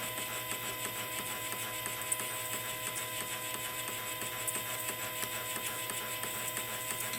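Epson P600 printer running its head-cleaning cycle: a steady mechanical whir with a few held tones and occasional faint ticks.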